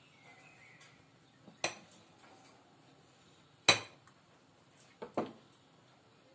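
Serrated knife clinking against a glass plate while cutting through a baked paska (Easter bread): several sharp clinks, the loudest a little past halfway and a quick pair near the end.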